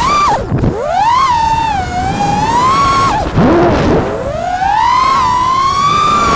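FPV quadcopter's brushless motors whining, the pitch sliding up and down with the throttle. It drops sharply twice, about half a second in and just after three seconds, as the throttle is cut, then climbs again.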